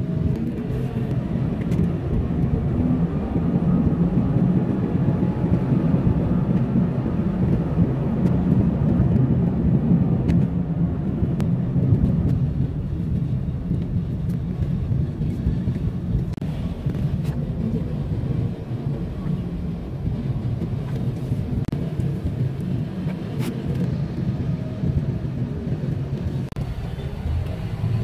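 Steady low rumble of a car's engine and tyres on the road, heard from inside the cabin while driving in traffic.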